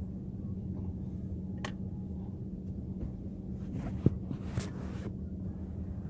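A few light clicks and a sharp knock from handling the plastic cabin-light cover and trim, over a steady low hum.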